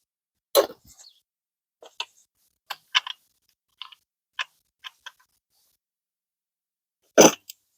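Scattered clicks and light taps of hard tool parts being handled, about ten in the first five seconds, then a pause and one louder knock near the end. No motor is running.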